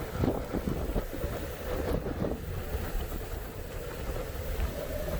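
Blizzard wind blowing against a car stopped at the roadside, heard from inside the cabin as a low, uneven rumble that rises and falls.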